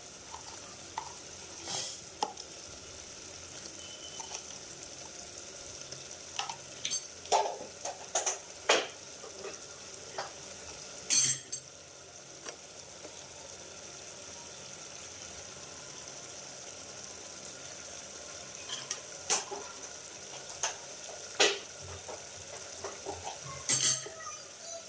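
Food sizzling steadily in a hot pan while a metal spoon stirs it, knocking and scraping against the pan every so often.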